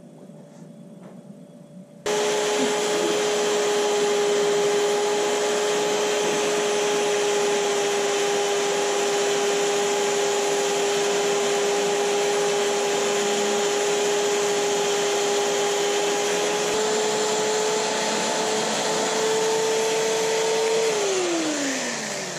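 Cordless drill spinning an abrasive bit against a rusty, thin-walled steel coolant pipe, grinding off the rust: a steady motor whine with a scouring rasp. It starts suddenly about two seconds in and runs until near the end, when the motor is released and its pitch falls as it spins down. The rusted pipe wall is wearing through, so the hole grows as it is ground.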